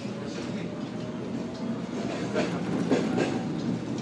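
Seoul Metro Line 1 refurbished resistor-control electric train accelerating out of a station, heard from inside the car: a steady rumble with a faint, slowly rising tone, and wheels clacking over rail joints, with a few louder knocks in the second half.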